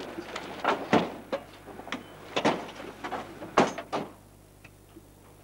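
Car doors being opened and shut: a run of knocks and thumps, the loudest three about a second apart, ending about four seconds in.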